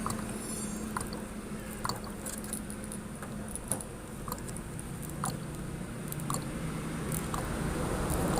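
Scattered light clicks and taps from handling a plastic ink bottle at the printer's ink tank while filling it, over a steady low background hum.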